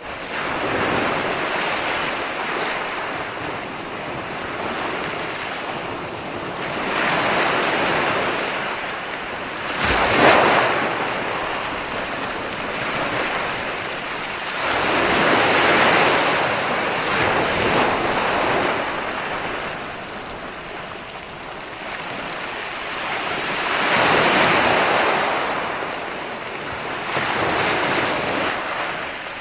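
Ocean waves breaking and washing in, swelling and fading every few seconds, with one sharper, louder crash about ten seconds in.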